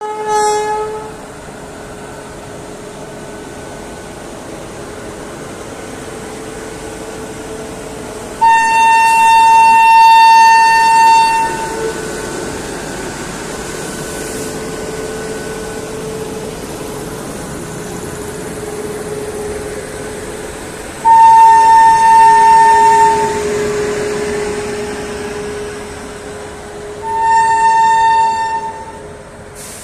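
Indian Railways train horn giving shrill, high-pitched blasts: a short one at the start, then three long ones of about three, two and just under two seconds. Between the blasts a steady hum and rumble from the train as it departs.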